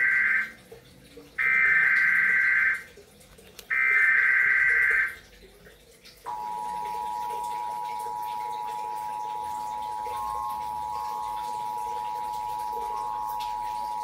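Emergency Alert System SAME header data played through a TV speaker: three harsh digital screeching bursts of about a second and a half each, a second apart, the first already under way. About six seconds in, the EAS attention signal starts, a steady two-tone alarm (853 and 960 Hz together) held without a break, marking the start of the alert message.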